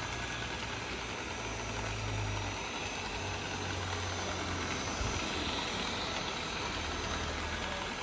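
Xiaomi robot vacuum running with its top cover off, test-running after a repair to its motor control circuit: a steady whir of its motors. A lower hum beneath it drops away about two and a half seconds in, returns, and there is a small knock about five seconds in.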